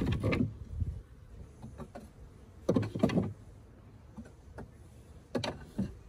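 Wooden hive frames scraping and creaking as they are slid out of the hive. Two rough scrapes, one about three seconds in and one near the end.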